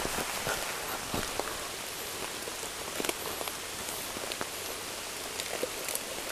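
Steady rain falling through a rubber-tree canopy, with many single drops ticking on leaves and the ground.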